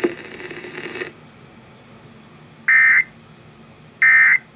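Emergency Alert System End of Message tones: two short bursts of the warbling digital SAME data code, about a second and a half apart, marking the end of a flash flood warning.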